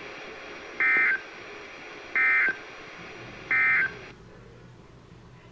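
Emergency Alert System end-of-message tones: three short bursts of SAME digital data tones, about a second and a half apart, marking the end of the alert. Just after the third burst the steady background hiss drops away.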